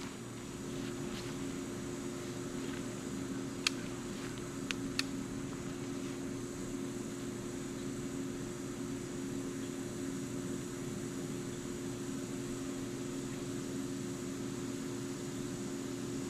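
Steady low machine hum with a faint high whine above it, and a couple of sharp clicks about four and five seconds in.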